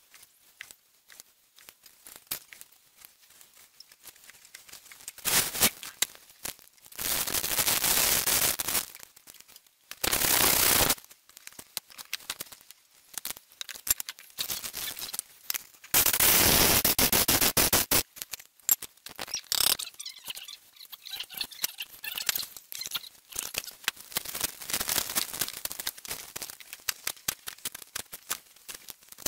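Knife clicking and chopping on a plastic cutting board while slicing meat and chopping garlic. Several loud rushing noises, each one to two seconds long, come in the middle of it.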